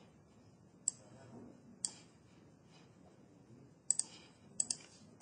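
Sharp clicks of a computer mouse and keyboard over a faint room hush: single clicks about one and two seconds in, then two quick double clicks near the end.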